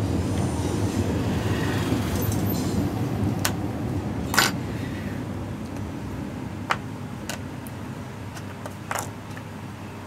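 A few sharp clicks and taps as a small phone LCD display and its parts are handled on a workbench, the loudest about four and a half seconds in, over a steady low rumble that slowly fades.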